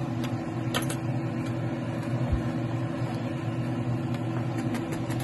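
Steady low mechanical hum, like a kitchen fan or motor running, with a few light clicks. The clicks near the end come from a wire whisk touching the pot.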